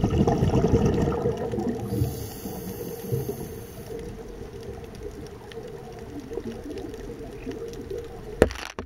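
Underwater, a scuba diver's exhaled bubbles rumble and gurgle loudly for about two seconds, then ease to a low steady rumble. One sharp knock near the end, likely the camera housing being handled.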